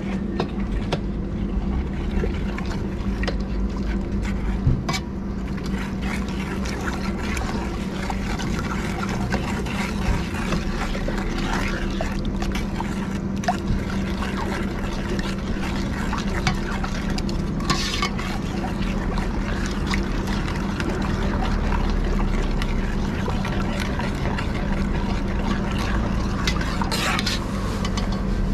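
Metal ladle stirring and lifting thick sauce in a stainless steel stockpot: liquid sloshing and dribbling, with scattered clicks and scrapes of metal on metal. A steady low hum runs underneath.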